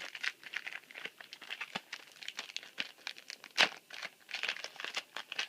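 Foil Yu-Gi-Oh booster pack wrapper crinkling and tearing as it is worked open by hand: a dense run of small crackles with one louder crackle about two-thirds of the way through.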